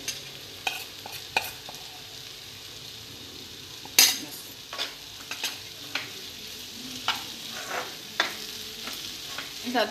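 Onion-tomato bhaji sizzling gently in oil in a nonstick pan while a metal spoon clinks and scrapes against the pan. The sharpest clink comes about four seconds in, and the spoon stirs the mixture near the end.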